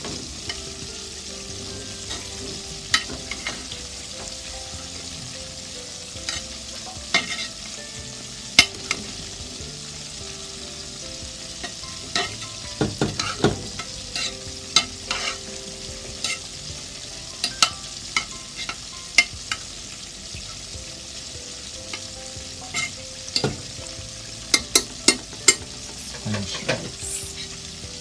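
A spoon scrapes and knocks against an aluminium pot as cooked Spanish rice is dug up and fluffed, giving scattered sharp clicks over a steady sizzling hiss.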